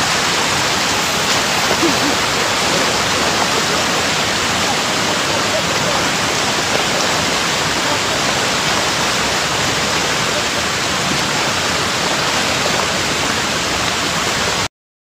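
A loud, steady rushing hiss like running water, with no rhythm or pitch, that cuts off abruptly near the end.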